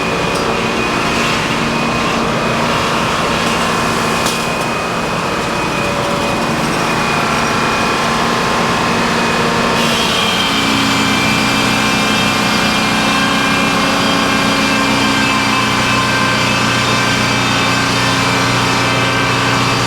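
Sawmill running steadily under power, its engine and saw going without a break; about halfway through the pitch of the machine shifts and then holds steady again.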